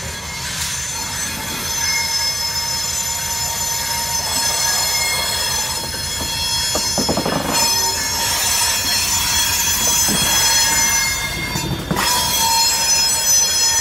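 A Canadian Pacific GP20C-ECO diesel locomotive and cement hopper cars rolling slowly past close by. The diesel engine rumbles under a steady high-pitched squeal of wheels on the rail, and the sound grows louder as the locomotive draws level.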